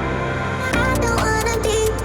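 Background music: a new track starts with a steady bass, and a pitched, bending melody comes in about three-quarters of a second in.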